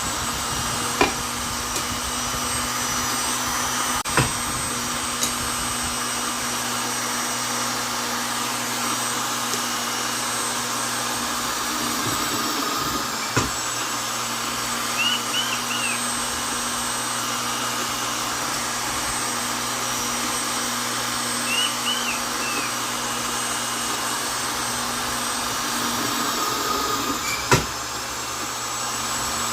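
Vonder electric drill running steadily at constant speed, a continuous motor whine and hum, with a few sharp clicks along the way.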